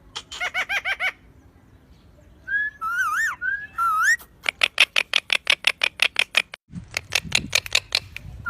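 A parrot vocalizing: a quick run of short chirps, then a few warbling whistles that slide up and down in pitch, then long runs of sharp repeated notes at about eight a second.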